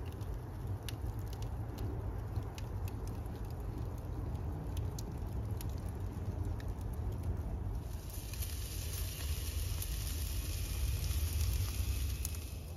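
Wood fire crackling with sharp pops over a steady low rumble. About eight seconds in, a loud steady hiss of beef short ribs sizzling on the grill over the fire takes over, then cuts off suddenly near the end.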